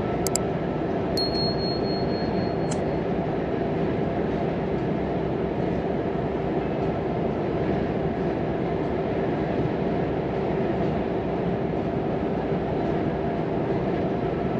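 Steady running noise of a Volvo FM 420 truck driving at speed: a diesel engine drone mixed with tyre and road rumble, heard from inside the cab. About a second in, a thin high beep lasts about a second and a half, framed by two short clicks.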